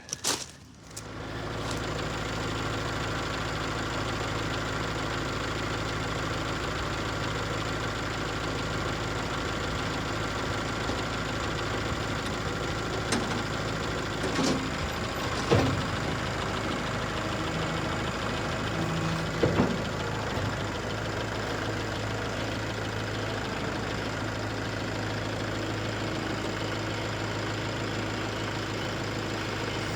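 Tractor engine idling steadily, with a few sharp knocks near the middle.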